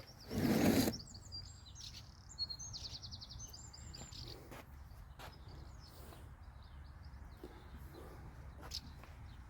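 Small birds chirping, with a quick trill a few seconds in. About half a second in comes a short loud rush of noise, the loudest sound, and faint clicks are scattered throughout.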